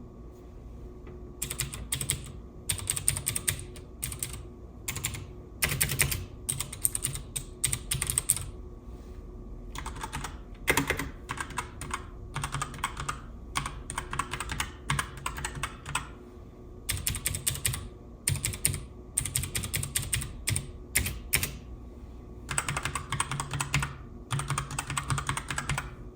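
Typing on a mechanical keyboard: runs of rapid key clicks broken by short pauses.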